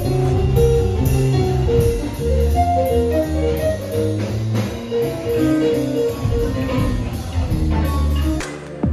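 Jazz music: a melody over a steady beat, breaking off just before the end.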